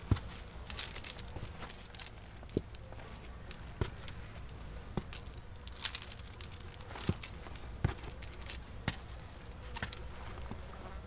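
Irregular metallic clinking and jingling with a high ringing tone, in two bursts: one about a second in and another around the middle.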